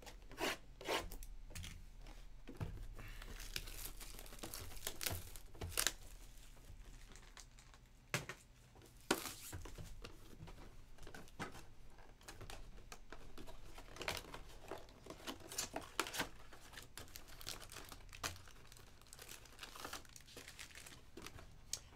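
Crinkling of foil trading-card pack wrappers and rustling of cardboard as packs are pulled out of 2021 Panini Phoenix football hobby boxes, with scattered sharp taps and clicks of the boxes being handled.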